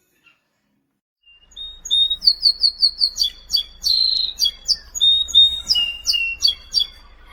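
A small bird singing a fast, varied song of clear high chirps, quick down-sweeping notes and repeated-note trills. It starts about a second and a half in and stops shortly before the end.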